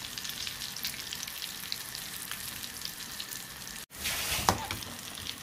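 Batter-dipped sukhiyan balls deep-frying in hot sunflower oil: a steady sizzle with fine crackling, the balls fried through and ready to lift out. The sound drops out for a moment about four seconds in, then comes back louder with one sharp knock.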